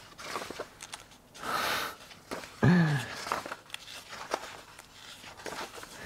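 Paper rustling as pages of a printed brochure are handled and turned, with a swish about a second and a half in and scattered light clicks.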